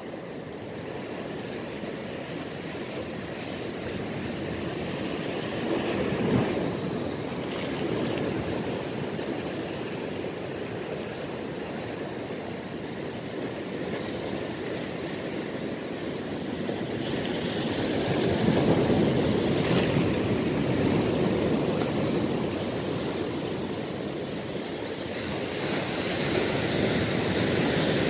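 Sea surf breaking and washing against shoreline rocks, a steady rush that swells louder several times as bigger waves come in.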